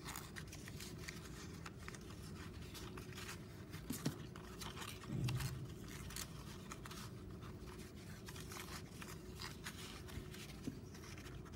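Construction paper rustling and crinkling softly as a paper strip is woven over and under through the slits of a paper sheet and slid along, with many small irregular crackles and scrapes.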